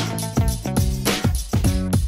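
Background music with a steady beat, a funk-style track with drums and pitched instrument lines.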